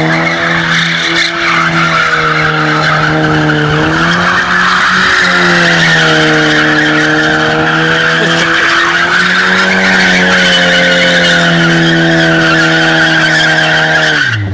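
Ford Sierra 2.0's engine held at high revs while its rear tyres spin and screech continuously through a smoky donut, the revs wavering up and down. Right at the end the revs drop sharply and the screech stops.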